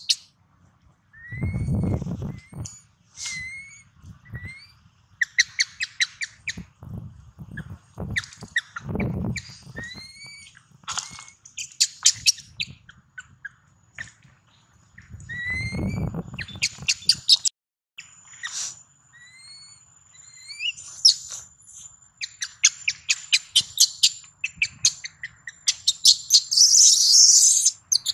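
Newborn long-tailed macaque crying: repeated high, rapidly pulsed squeals and short rising whimpers, loudest and most continuous near the end. These are the distress cries of a hungry baby that is not being let to nurse.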